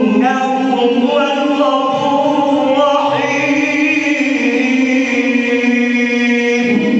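A man's voice reciting the Quran in a slow, melodic chanted style, drawing out long held notes with wavering ornaments and shifting pitch several times.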